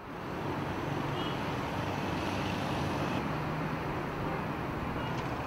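Steady city traffic noise, an even wash of road sound with a faint low hum.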